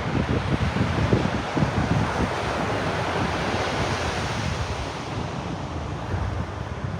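Ocean surf washing onto a beach as a steady rushing hiss that swells and eases. Wind gusts rumble on the microphone in the first couple of seconds.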